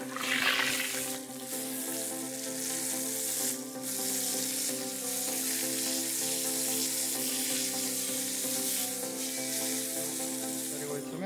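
Chunks of pork frying in hot oil in a cast-iron kazan: a steady, dense sizzle. Background music with sustained chords plays underneath.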